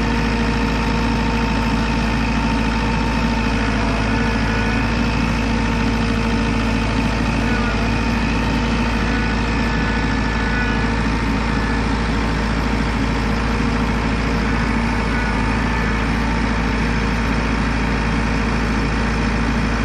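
An engine running at a steady speed with a constant low hum, unchanging throughout.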